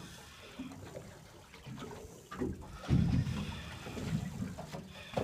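Sea water sloshing and splashing against the side of a fishing boat, with irregular low rumbles; the loudest swell comes about three seconds in.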